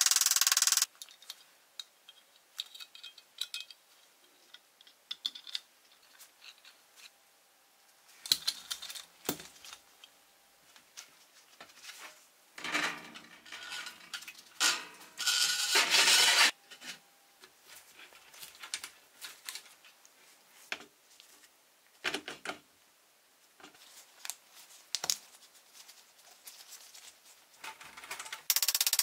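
Small metal parts of a toy car being handled, with scattered light clicks and clinks. About halfway through come two longer noisy sounds of about a second each.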